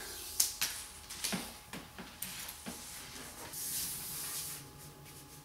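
Handling noises as a level is held against a wall decal to check it is straight: a few light taps and knocks, then a soft rustle about three and a half seconds in.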